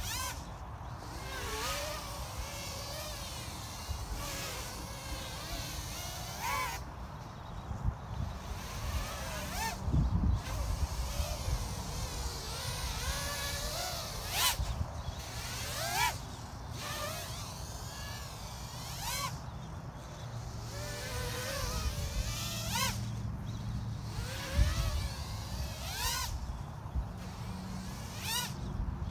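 Small 3-inch FPV quadcopter with 1105 6000KV motors and 3-inch props, whining as it flies, its pitch rising and falling again and again with throttle changes and passes. A few low thumps stand out, the loudest about ten seconds in and again near twenty-five seconds.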